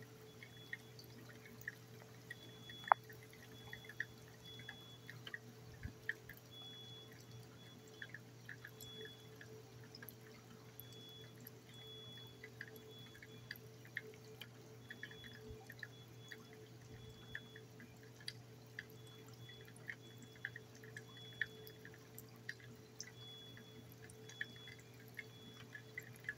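Storm rain dripping: scattered, irregular drips over a faint steady hum. A faint high chirp repeats in short runs, and there is one sharp click about three seconds in.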